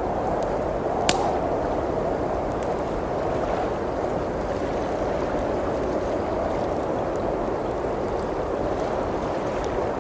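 Steady howling blizzard wind with a crackling wood fire: scattered faint pops and one sharp pop about a second in.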